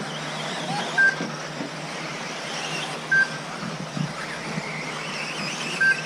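Electric 1/10-scale 4WD off-road RC buggies running around the track, their motors whining with wavering pitch. Short high beeps sound three times, about a second in, about three seconds in and near the end, typical of the lap-timing system as a car crosses the timing loop.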